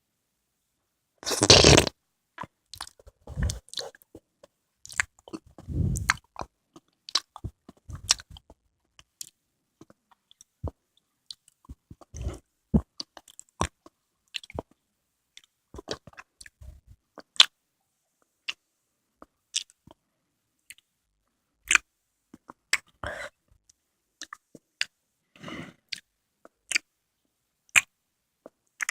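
Close-miked ASMR chewing of konjac jelly: wet, squishy mouth sounds, with irregular smacks and clicks. There is a louder burst about a second and a half in, and another a few seconds later.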